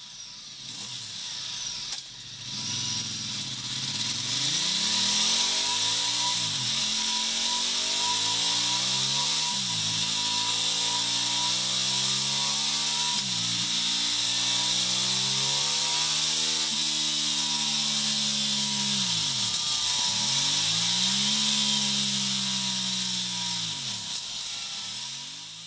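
Ducati Multistrada 1200's L-twin engine revving, its pitch climbing and then dropping back sharply several times, about every three to four seconds. It builds up over the first few seconds and tails off near the end.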